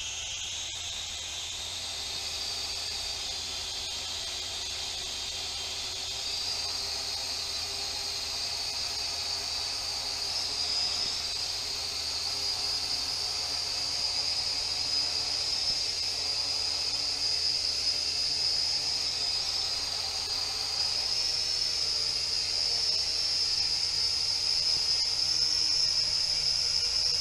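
Small quadcopter drone's electric motors and guarded propellers whining steadily, creeping slowly higher in pitch and louder as the throttle is raised.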